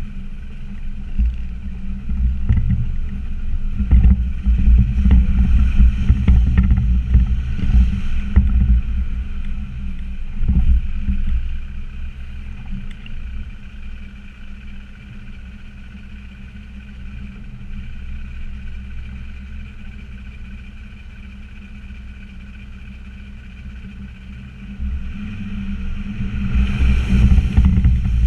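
Land Rover Discovery Td5's five-cylinder turbodiesel engine driving over a rough off-road track, with knocks and bangs from the bumps. It works harder and louder for the first dozen seconds, settles to quieter running through the middle, and picks up again near the end.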